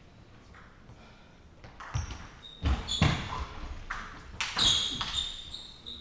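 Pause between table tennis rallies in a sports hall: a few dull thuds about two to three seconds in, then short high squeaks of sports shoes on the hall floor as the players set up for the serve.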